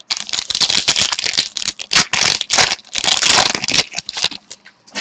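Foil wrapper of a 2013-14 SPx hockey card pack crinkling and tearing as it is ripped open by hand: a dense crackle that stops a little before the end.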